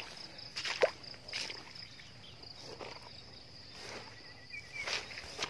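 Footsteps squelching and scuffing through wet grass and mud, a few irregular steps with a short sharper sound about a second in. A steady high drone of crickets and insects runs underneath.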